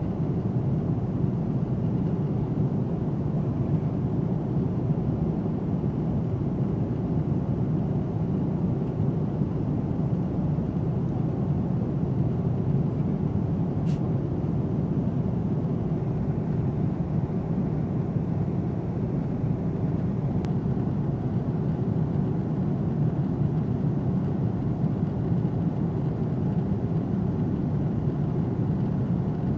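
Steady low rumble of cabin noise inside an Airbus A330 MRTT tanker in flight: engine and airflow drone through the fuselage, even and unchanging.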